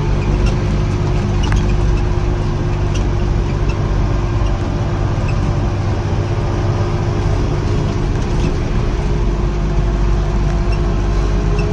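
Farm tractor engine running steadily under load while mowing hay, a constant low hum with a steady whine above it.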